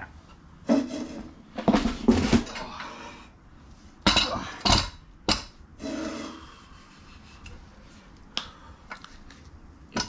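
Metal bike-rack parts knocking and clanking as they are handled and fitted together: a series of sharp clunks, loudest around two seconds in and again around four to five seconds in.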